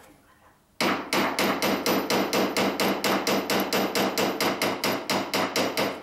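Pneumatic impact wrench hammering in a rapid, even rhythm, starting about a second in, as it works a fastener on a wing harrow's drive hub.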